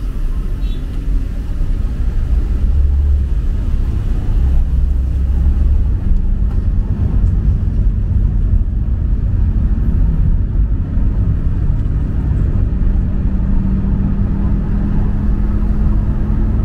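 Steady low rumble of road traffic. About six seconds in, a low engine drone joins it and creeps slowly up in pitch.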